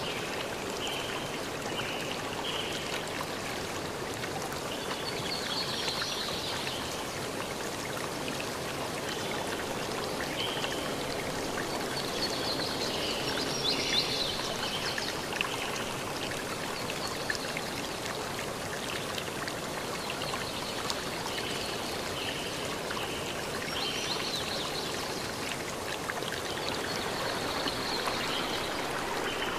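Steady rush of flowing water, like a stream, with short faint chirps now and then.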